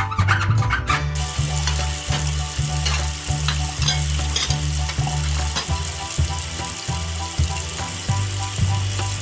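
Tap water running into a frying pan as a steady hiss, starting about a second in, over background music with a steady bass beat.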